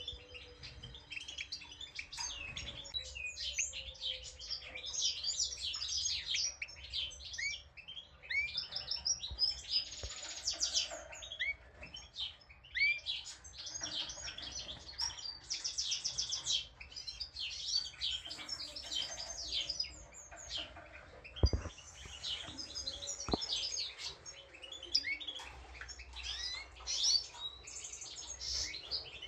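Caged Constantine-strain European goldfinch singing a fast, twittering song in long phrases broken by brief pauses. Two short knocks come about three-quarters of the way through.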